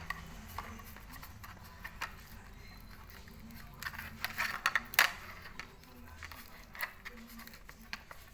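Scattered light clicks, taps and sticky crackles from hands working fresh homemade slime and its container, busiest about four to five seconds in.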